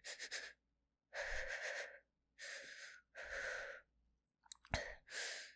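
A woman's heavy, ragged breathing: a few quick gasps, then about four longer breaths, each under a second, as she jolts awake from a nightmare.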